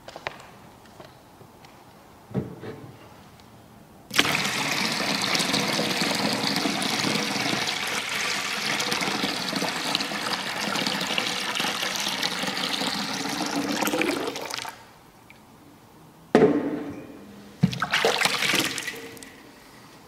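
Water poured from a pitcher into a copper baptismal font: a steady splashing stream for about ten seconds that stops abruptly. A few seconds later come two short, louder sounds.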